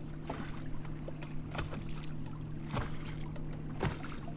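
Small waves lapping and slapping against a fishing boat's hull in short irregular splashes, over a steady low electric hum.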